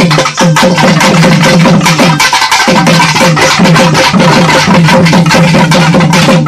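Loud, fast drum-driven karakattam dance music with rapid strokes throughout. A repeating low drum pattern glides down in pitch on each stroke and drops out briefly about two seconds in.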